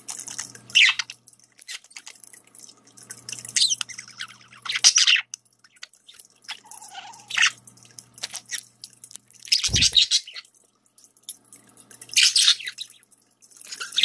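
Budgerigars chirping in short, scattered bursts over the trickle of a running pet water fountain, with a thump about ten seconds in.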